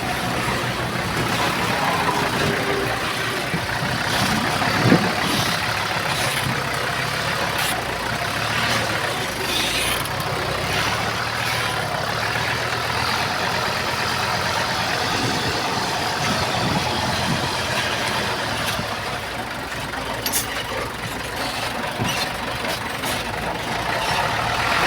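Heavy diesel construction machinery running steadily, with a sharp knock about five seconds in and a few lighter clanks later.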